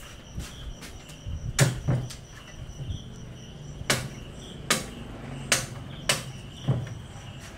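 A large knife chopping into the fibrous husk of a young green coconut: about seven sharp chops, some in quick pairs, roughly one every half to one second, over a steady background chorus of crickets.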